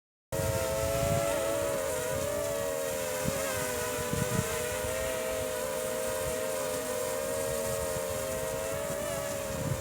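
Ryze Tello mini quadcopter hovering: its small propellers make a steady, slightly wavering buzzing whine, with wind rumbling on the microphone. The sound cuts in abruptly just after the start.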